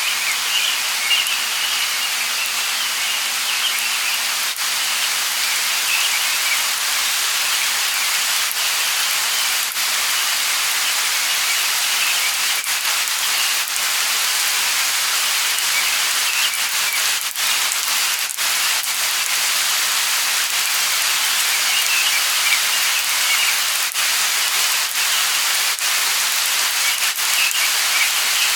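Light rain falling steadily: an even hiss with single drops ticking here and there, and faint bird chirps coming and going.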